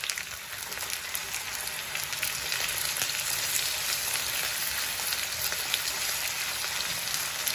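Diced potatoes frying in a good layer of hot vegetable oil in a pan: a steady sizzle full of fine crackles.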